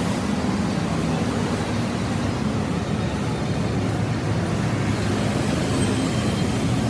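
Steady low mechanical rumble with no sudden events.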